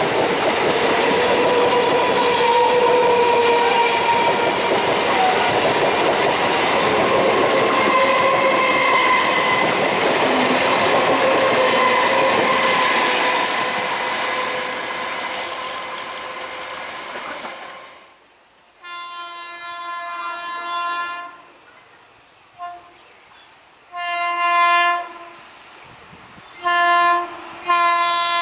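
An Indian Railways EMU local train runs past close by with a dense, loud rumble and clatter of wheels on rail, carrying faint squealing tones. It fades out, and then an electric locomotive's horn sounds in a series of blasts: one long blast, then several shorter ones.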